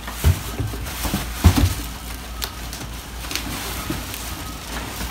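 Handling of gaming-chair parts and packing in a cardboard box: a few dull thumps, about a quarter second in and around a second and a half in, with rustling of plastic wrap and foam sheet.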